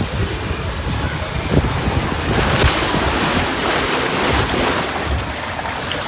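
Water rushing and splashing along a waterslide, with wind buffeting the microphone. The rush swells louder for a couple of seconds in the middle.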